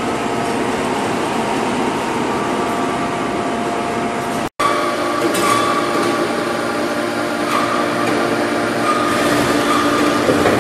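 Steady, loud forge-shop machinery noise: a continuous mechanical din with a few steady hums running through it, breaking off for an instant about four and a half seconds in.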